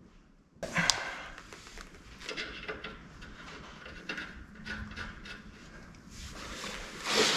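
Light metal clicks and handling noises from hand-fitting a nut onto a trailer suspension bolt. They start suddenly about half a second in with a sharp click, then go on in scattered small clicks and knocks, getting louder near the end.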